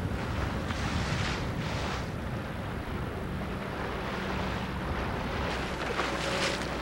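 Wind buffeting an open camcorder microphone on the water, gusting up a few times over a low, steady rumble.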